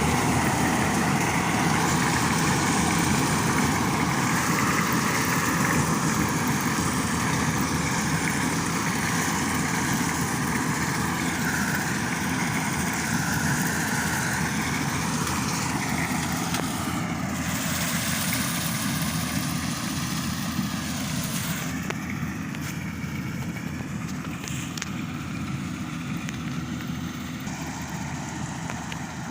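Yanmar AW-70V corn harvester's diesel engine and machinery running steadily, with a wavering whine, gradually getting fainter.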